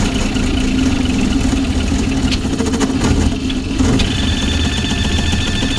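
VzBot high-speed 3D printer running a print: a steady mechanical hum and whir. A thin high whine drops out for the first few seconds and comes back about four seconds in.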